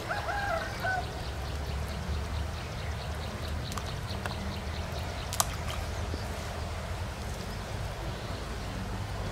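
Steady low outdoor background rumble, with a brief faint bird call just after the start and a single sharp click about five seconds in.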